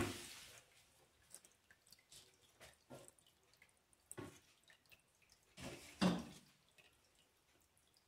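Water dripping irregularly from a corrugated plastic hose into a nearly full bucket: rainwater leaking into the house. The drips and splashes come unevenly, the loudest right at the start and another about six seconds in.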